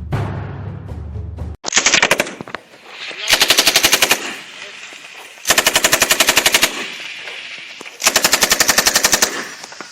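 Background music ends abruptly about a second and a half in, then a light machine gun fires in bursts: one short burst, then three longer bursts of rapid, evenly spaced shots, each about a second long and about two seconds apart.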